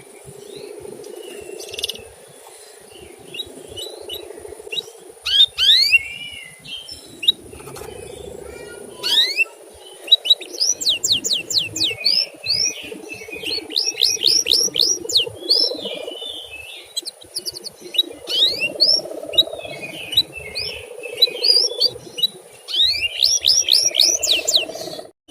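Domestic canary chirping: quick rising 'cuit' notes, singly at first and then in fast runs of many notes a second, over a steady low hum.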